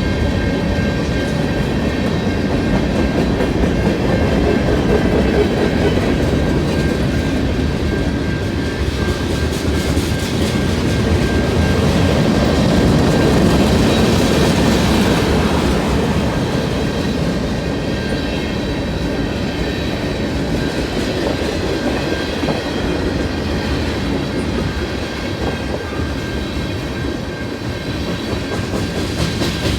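Canadian National freight train rolling past, its wheels clicking over the rail joints in a steady rumble, with faint high, steady wheel-on-rail tones above it. The rumble swells and peaks about halfway through.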